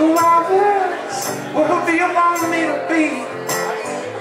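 Live solo acoustic music: an acoustic guitar played under a melody line of held notes that bend and slide in pitch.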